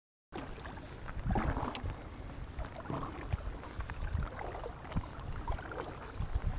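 Double-bladed paddle strokes from a folding sea kayak on calm sea, starting a moment in: the blades dip and splash about every second and a half, with water swishing past the hull and a low rumble underneath.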